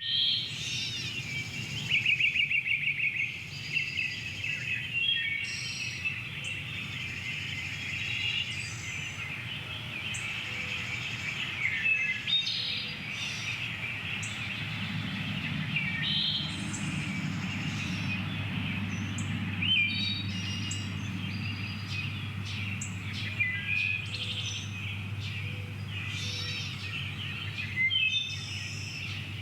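Countryside morning ambience: many birds chirping and calling over a dense, steady chatter, with a loud burst of rapid chirps about two seconds in. A low steady rumble lies underneath and thickens about halfway through.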